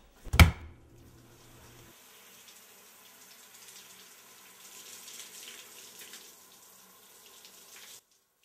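A sharp knock, then water running steadily, as from a tap, for about seven seconds before stopping abruptly.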